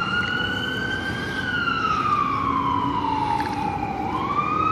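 Fire truck siren on a slow wail: the pitch climbs during the first second or so, falls for nearly three seconds, and starts to climb again near the end.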